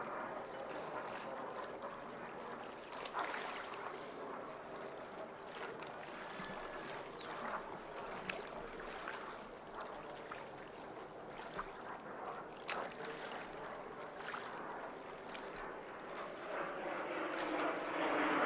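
PBY Catalina's twin radial engines running at low power while the flying boat taxis on the water, a steady distant drone with scattered sharp clicks. Near the end the engine sound swells as power comes up.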